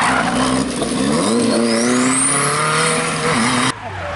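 Renault 5 Turbo rally car accelerating out of a hairpin: its engine note climbs steadily in pitch for about a second, with a thin high whistle rising alongside. Near the end the sound cuts abruptly to a quieter engine.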